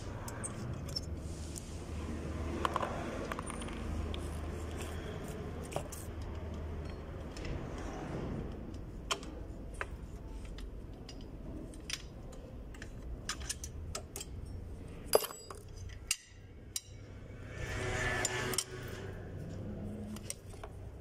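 Scattered metallic clicks and clinks of steel coil springs and hand tools being worked on a drum-brake backing plate while the rear brake shoe hardware is refitted. A steady low hum runs underneath, and the sharpest clack comes about fifteen seconds in.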